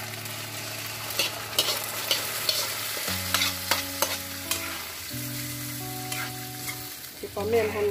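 Sliced elephant apple sizzling in an iron kadai while a metal ladle scrapes and clinks against the pan, the clinks thickest in the first half. Soft background music chords run underneath.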